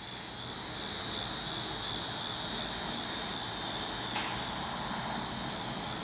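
Chorus of annual dog-day cicadas buzzing as one steady, high-pitched drone that swells in over the first second and then holds even.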